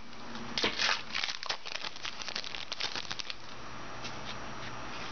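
Trading-card pack wrapper crinkling and tearing as it is opened: dense crackling for about three seconds, then only a few faint clicks.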